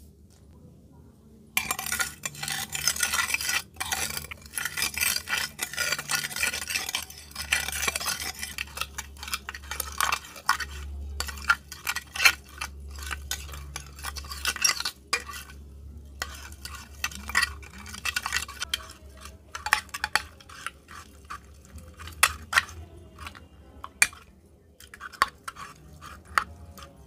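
A spoon stirring beads and glitter through a clear slime liquid in a glass baking dish. After a quiet start, a dense wet scraping begins about a second and a half in. Past the middle it thins to scattered scrapes and clicks of the spoon and beads against the glass.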